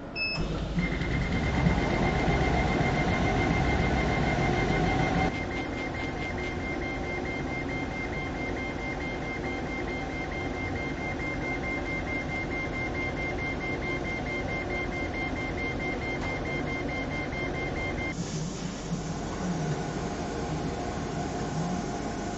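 DIY CO2 laser cutter running a job: a steady mechanical hum from the machine and its water chiller, with a constant high whine. It is a little louder for the first five seconds, and the whine stops about 18 seconds in.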